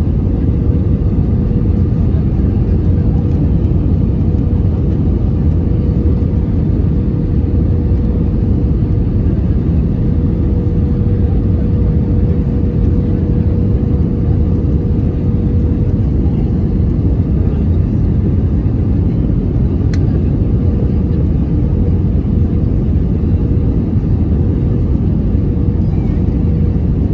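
Airbus A320 cabin noise at a window seat on final approach: the steady rush of engines and airflow, deep and even, with a steady hum at one pitch running through it.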